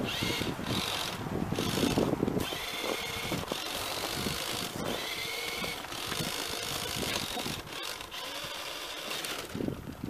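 Remote-control car's motor and gears whining in a series of throttle bursts, the pitch rising and falling with each burst.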